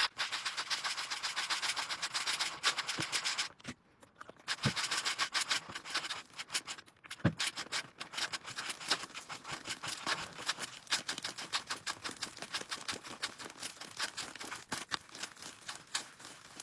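Fluffy slime made with clear glue being mixed: a fast, continuous run of sticky, wet clicks and crackles as the tacky mixture pulls apart, pausing briefly a few seconds in.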